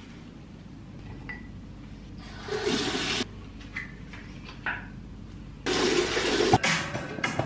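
Bathroom tap running into a ceramic basin in two short spells of about a second each, the second the louder, with small handling sounds in between as toothpaste goes onto a toothbrush.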